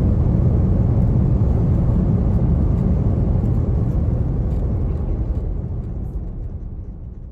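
Cabin noise of an Airbus airliner rolling out on the runway after touchdown: a steady low rumble from the engines and landing gear on the runway surface. It fades away over the last couple of seconds.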